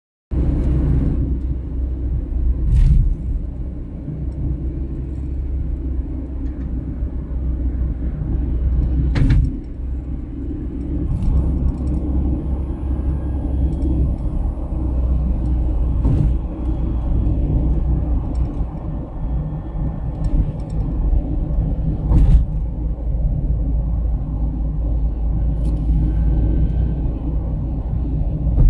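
Road noise of a car driving at highway speed, heard from inside the car: a steady low rumble of tyres and engine, with a sharp knock every six or seven seconds.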